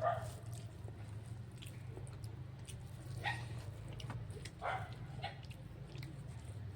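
Eating sounds: chewing and small mouth clicks close to the microphone over a steady low hum, with a few short high-pitched calls at the start and again about three to five seconds in.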